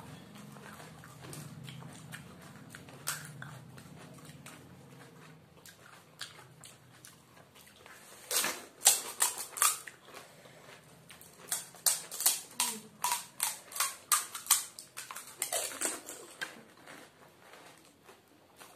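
Crisp fuchka (pani puri) shells cracking and crunching as they are broken open by hand and eaten: a quick run of sharp crackles through the middle and second half.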